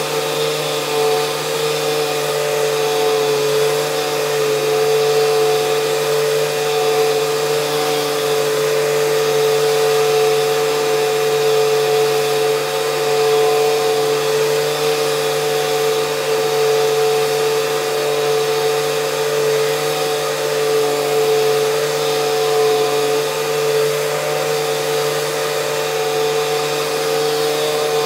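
Parkside PAEXS 20-Li B2 20 V cordless random orbital sander running steadily at constant speed, its pad sanding a wall, with a vacuum cleaner running on its dust-extraction port. The result is a loud, even hum that does not change.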